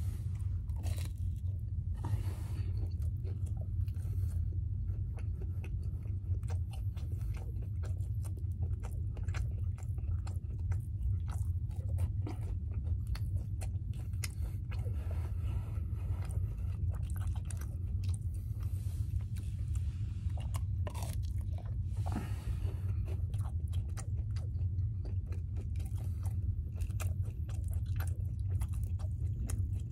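Close-up chewing and biting of French toast sticks dipped in syrup, with many short mouth clicks scattered throughout, over a steady low hum.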